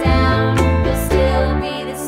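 Children's background music with a bass line stepping from note to note and pitched notes changing several times a second.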